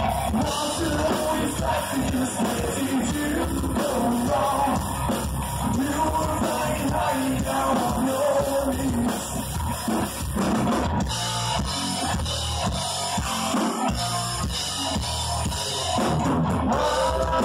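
Heavy rock band playing live through a PA: distorted electric guitars, bass and a drum kit, with a singer's voice over the first half and held guitar notes near the end.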